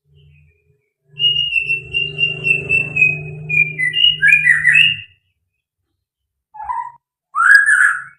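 White-rumped shama (murai batu) singing: a rapid run of high whistled notes for about four seconds over a low hum, then two short whistled phrases near the end.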